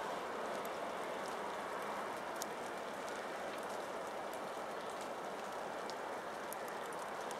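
Steady rushing outdoor background noise, with a few faint scattered ticks.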